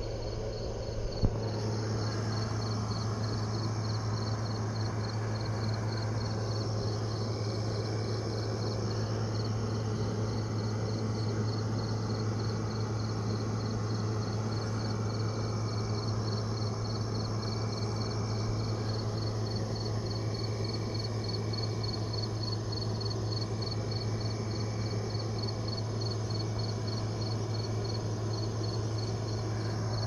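Night insect chorus: crickets chirping in a steady, even rhythm of high chirps, with another insect's trill coming and going every couple of seconds, over a steady low hum.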